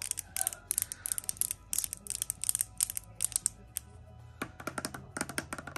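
Long acrylic nails tapping rapidly on a small cardboard box and on the lamp's casing, a quick patter of sharp clicks that thins out in the middle and comes thick again near the end.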